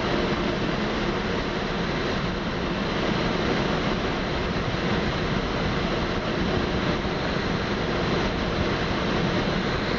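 Steady rush of airflow around a Slingsby Capstan glider's cockpit and canopy while on aerotow behind a tug plane.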